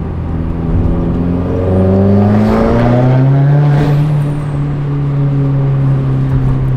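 2015 Subaru WRX's turbocharged FA20DIT flat-four with a Tomei Expreme Ti titanium exhaust, accelerating. The engine note rises for about two seconds, then holds a steady, louder drone at higher revs.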